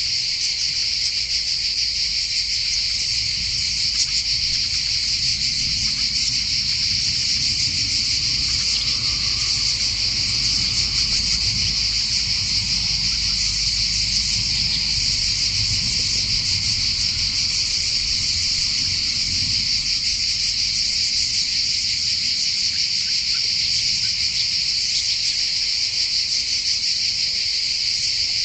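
Chorus of insects, crickets or cicadas, keeping up a steady, dense, high-pitched buzzing drone without a break.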